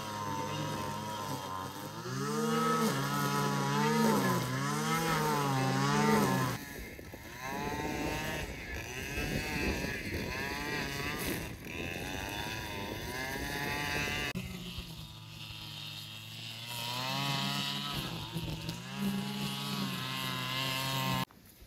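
Small petrol engine of a grass trimmer mowing a meadow. Its pitch rises and falls over and over as the engine revs and takes load in the grass. The sound changes abruptly twice.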